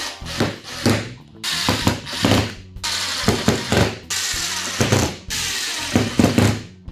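Power drill/driver running in four short bursts of about a second each, typical of driving screws, most likely fixing the aluminium T-track into the grooved fence. A few light knocks and clicks come before the first burst.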